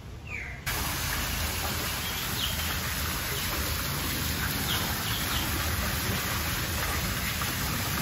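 A bird's short falling chirp, then, under a second in, a sudden switch to a steady rush of running water, with faint bird chirps behind it.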